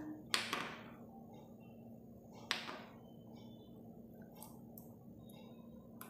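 Two sharp light knocks about two seconds apart, made as small clay discs backed with magnet sheet are set down on a hard tabletop, followed by a few fainter ticks. A low steady hum runs behind.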